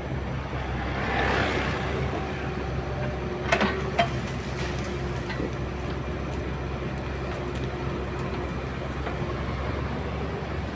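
Excavator's diesel engine running steadily under work, with two sharp metallic knocks about three and a half and four seconds in.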